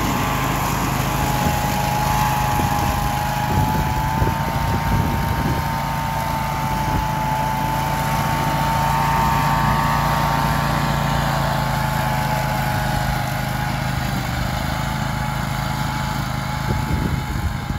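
Grillo Climber 10 AWD 27 ride-on slope mower running steadily while mowing tall grass: a low engine drone with a high whine above it that wavers slightly in pitch.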